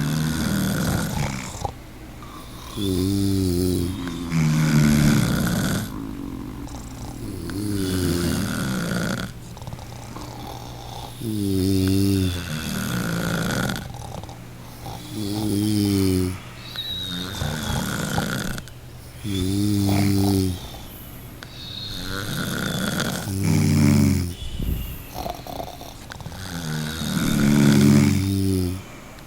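A person snoring steadily. A rattling, pitched snore comes on the breath roughly every four seconds, with softer, breathy breaths between.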